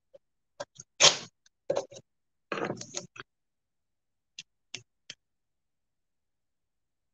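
Masking tape being pulled off the roll and torn in a few short rips, the loudest about a second in and a longer one near three seconds, followed by three light clicks.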